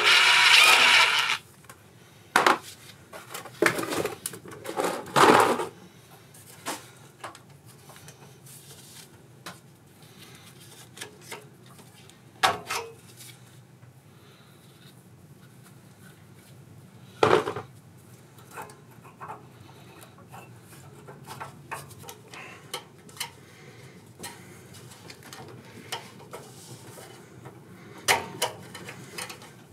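Hand tools and small metal parts clinking and clattering now and then, with scattered sharp knocks, as a small engine's carburetor is unbolted. A louder, noisy burst of handling sound comes in the first second or so.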